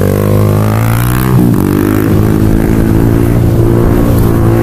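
Motorcycle engine revving under way with wind noise. Its pitch climbs, drops about a second in, then holds steady.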